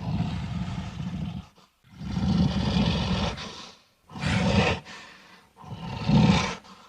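Designed monster roar sound effects: four roars in a row with short gaps between them, the first two longer than the last two.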